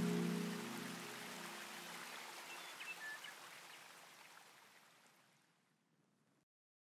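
Background music ending: its last notes die away in the first second, leaving a soft hiss like rain that fades out, with a few faint chirps a few seconds in.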